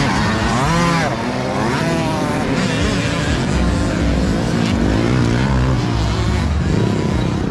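65cc two-stroke motocross bikes racing, their engines revving up and falling back over and over as they ride the jumps.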